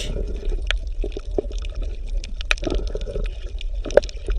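Water bubbling and gurgling, with many small irregular pops and clicks.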